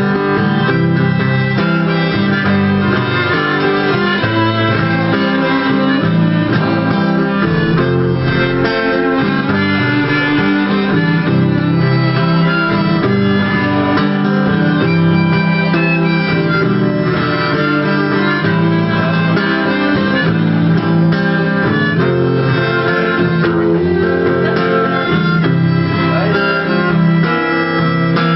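Instrumental break of a song: acoustic guitar accompaniment with a sustained lead melody played over it, no singing.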